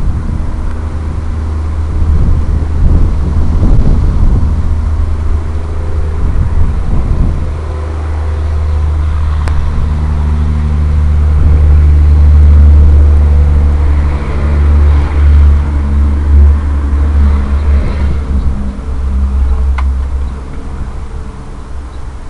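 A 650-size quadcopter's electric motors and propellers running in flight, buried under a heavy wind rumble on the onboard microphone that swells and gusts, loudest about halfway through.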